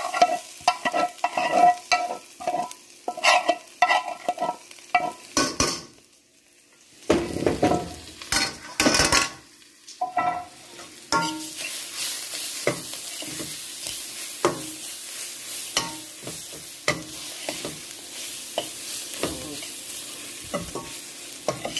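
Metal spoon scraping and knocking against a metal pan as fried onion, sweet pepper, celery and tomato paste are scraped out, with a short lull about six seconds in. From about eleven seconds the vegetables sizzle steadily on a browned-flour roux in the pot, with spoon clicks as it is stirred.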